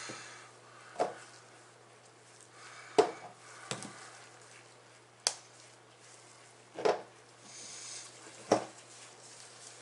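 About six separate clicks and knocks of small hobby paint bottles being handled, tapped and set down on a cardboard-covered workbench during paint mixing.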